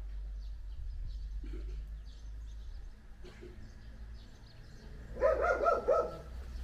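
A dog barking about four times in quick succession near the end, over a steady low rumble and faint bird chirps.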